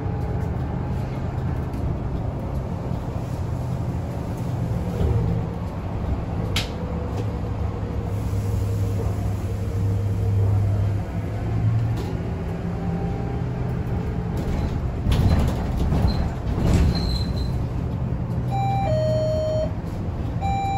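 Interior of a moving city bus: a steady low engine and road hum with occasional rattles and knocks. Near the end, a falling two-note electronic chime sounds twice.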